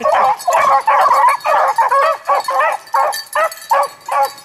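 A pack of beagles baying together on a rabbit's scent, several hounds' cries overlapping in a continuous chorus that thins to more separate cries near the end.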